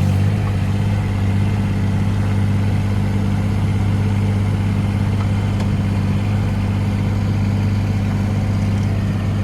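Three-cylinder Yanmar diesel engine of a Wacker Neuson mini excavator running steadily, a little lower about half a second in.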